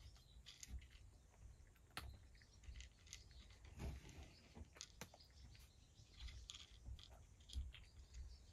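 A cat eating dry kibble from a plate: faint, irregular crunches as it chews.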